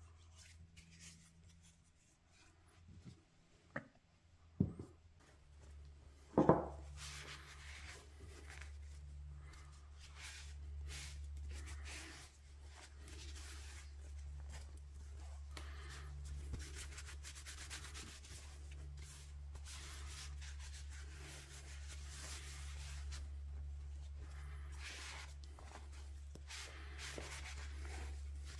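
A cloth rubbing finish into a maple and walnut mallet: continuous scuffing wiping strokes, uneven in rhythm. A few sharp wooden knocks come about four to six seconds in, just before the rubbing starts.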